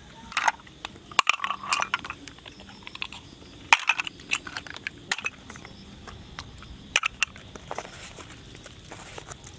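Freshwater snail shells being handled and broken open by hand: an irregular string of sharp clicks, cracks and crunches as the shells knock together and break.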